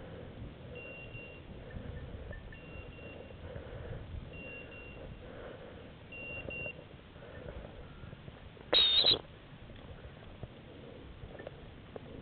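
A hunting dog's beeper collar sounding a short, high beep about every two seconds, four times, then one short, loud high-pitched whistle about nine seconds in. Faint rustling of brush runs underneath.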